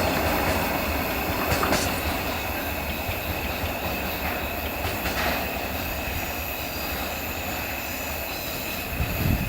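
Freight train of tank wagons rolling along the track, wheels clacking over rail joints, the sound slowly fading as it moves away.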